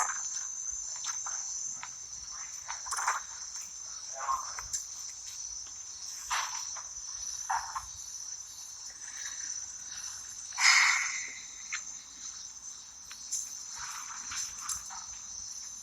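Steady, high insect chirring, with a few faint short noises scattered through it, the loudest about two-thirds of the way through.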